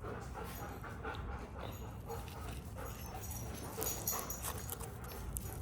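A dog making soft whining sounds, with many faint clicks and rustles throughout.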